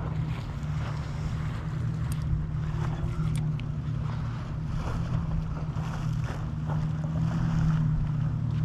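Steady low engine drone with wind on the microphone, and a couple of faint clicks in the first half.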